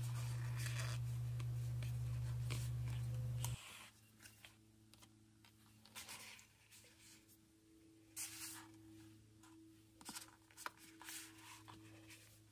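A steady low hum that cuts off suddenly about three and a half seconds in, followed by soft, scattered rustling and crinkling of cork fabric being handled.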